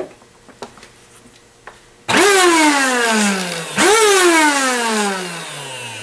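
Eureka AirSpeed One upright vacuum's motor, run with the brush-roll belt off, switched on twice. Each time a very loud whine jumps up in pitch, then falls steadily as the motor winds down. The noise persists with the belt off, so it comes from the motor alone.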